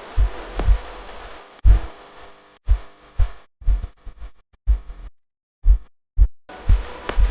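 Bass-heavy electronic ringtone music: deep kick thumps about twice a second under held synth tones. The music is chopped into a stuttering run of ever shorter pieces, drops out twice briefly about five to six and a half seconds in, then picks up again.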